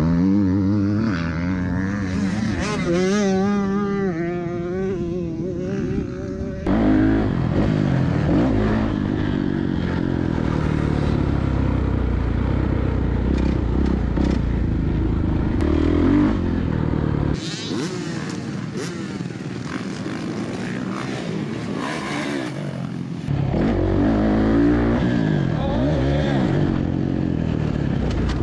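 Dirt bike engines revving up and down as the bikes are ridden around a motocross track, the pitch rising and falling with the throttle. The sound changes abruptly about a third of the way in, again past halfway, and once more near the end, like cuts between riding shots.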